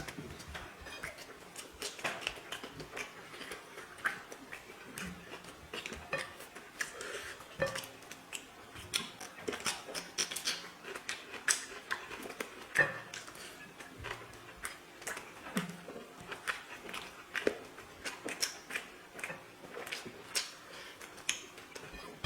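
Eating sounds from a person eating chicken biryani: chewing, with many small irregular clicks and clinks of food and fingers against a plate.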